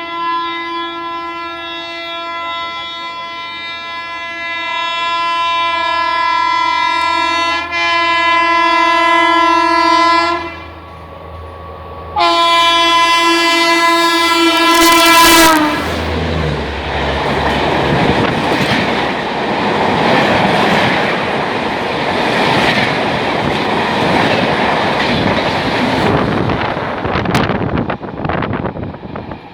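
Indian Railways WAP-4 electric locomotive's horn sounding one long blast of about ten seconds, then a second, shorter blast that dips in pitch at its end as the engine passes. It is followed by the loud, steady noise of the train going by at high speed.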